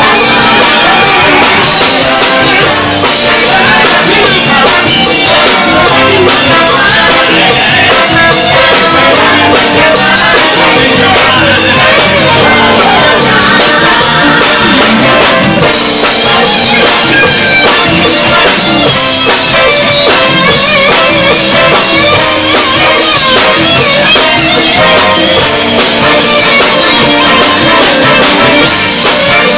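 Soul-funk band playing live: several voices singing over a horn section, congas and drums, steady and loud.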